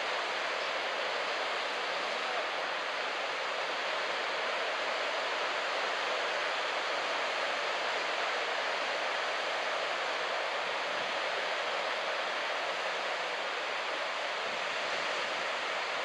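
Steady wash of ocean surf breaking on a sandy beach, an even rushing hiss with no distinct single wave crashes.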